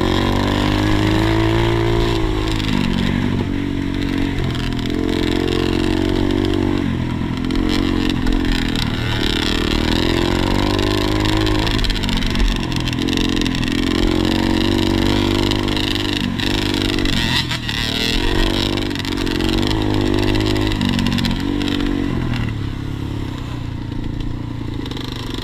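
Motocross bike engine running hard on a dirt track, its pitch repeatedly rising and falling with throttle and gear changes, close up as the rider hears it.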